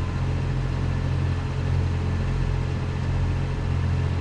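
Heavy tractor engine idling with a steady low hum, no revving.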